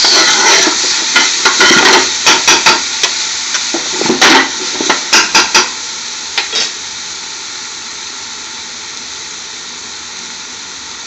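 Chopped onions and garlic sizzling as they fry in hot oil in a large metal pot, while a metal spoon stirs them and knocks against the pot with sharp clicks. The stirring stops about six and a half seconds in, leaving a steady, quieter sizzle.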